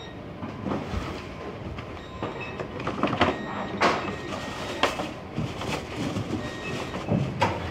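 Cardboard shoebox being handled on a packing bench: irregular knocks, taps and scrapes of cardboard as the box and its lid are opened and worked, over a steady background rumble of warehouse machinery.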